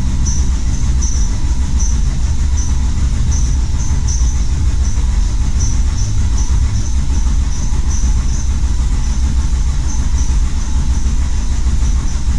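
2007 Volvo XC70 engine running steadily on starter fluid sprayed into the intake, with a faint high chirping over the rumble. It runs only because its fuel supply is failing to deliver, a gas problem that points to the fuel pump.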